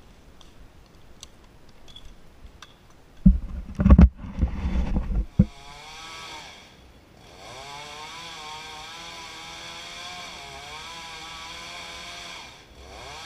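Top-handle chainsaw running with its pitch wavering up and down, steady from about six seconds in. Before that, from about three seconds in, a couple of seconds of loud low thumps and rumble, the loudest sound of all.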